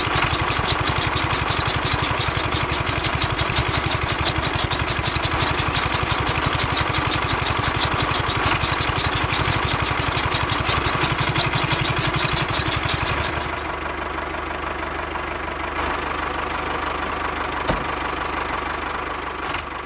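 Small electric motor on a toy DIY tractor running and driving a miniature chaff cutter by belt, the blades chopping fed grass with a rapid, even clatter. About thirteen seconds in, the chopping clatter stops and a quieter steady motor hum goes on.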